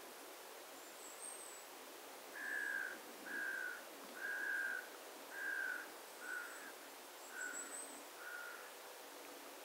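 A bird calling: a series of seven evenly spaced, clear whistled notes, each about half a second long, starting a couple of seconds in and fading a little towards the end. Faint, very high thin calls sound near the start and again near the end, over a quiet outdoor hiss.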